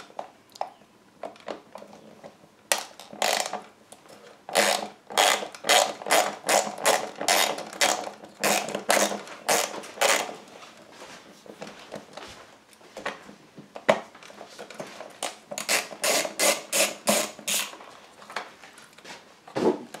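Quarter-inch ratchet on an extension clicking in quick repeated strokes, about three a second, as it backs out the screws holding the dispenser chute. It runs in two bursts with a pause between them.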